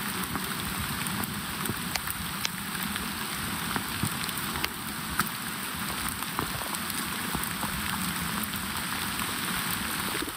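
Steady rain falling, with scattered sharp ticks of individual drops.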